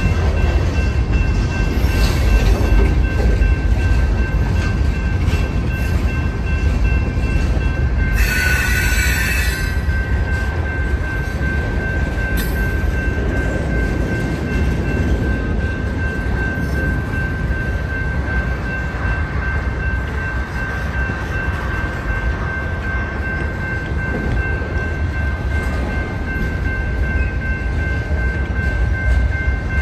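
Freight cars rolling past close by, their wheels on the rails making a steady low rumble with a thin high-pitched ringing tone running over it. A brief harsh wheel screech rises above it about eight seconds in.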